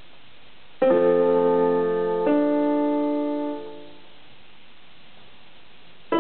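Yamaha electronic keyboard with a piano voice, played a note at a time by a child: a few notes about a second in, another a second and a half later, fading out by about four seconds, then fresh notes right at the end.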